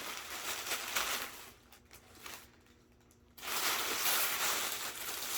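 Packaging rustling and crinkling as it is handled and opened, in short bursts at first, then a brief lull, then louder continuous rustling for the last two seconds.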